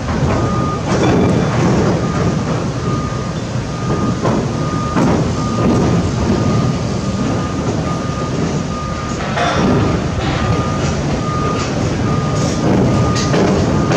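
A warning beeper sounds a short high tone over and over, a little faster than once a second, over a steady, loud rumble of heavy machinery.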